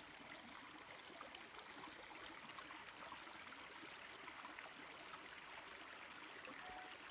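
Shallow brook flowing over rocks, a faint, steady trickle of running water.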